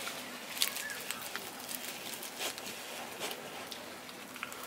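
Faint scattered clicks and light handling noise of wooden chopsticks working egg salad onto a slice of toast in a plastic basket.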